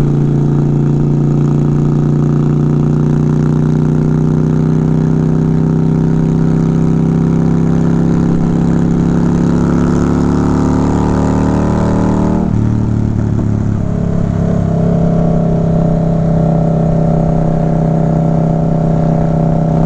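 Motorcycle engine and exhaust heard from the rider's seat. It pulls with a slowly rising pitch for about twelve seconds, then drops sharply at an upshift and runs on steadily at the lower pitch.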